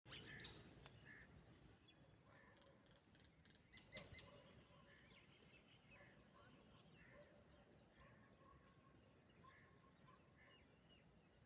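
Faint bird calls in tropical forest: short notes repeated about once a second over a soft background hiss, with a brief burst of clicks about four seconds in.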